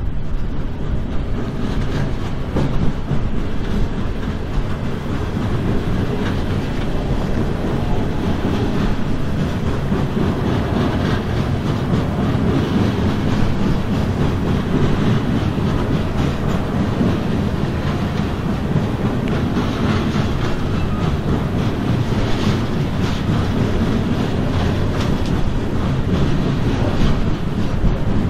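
Loaded coal hopper cars of a unit coal train rolling steadily past, a continuous rumble and rattle of wheels on rail with rapid clicks throughout.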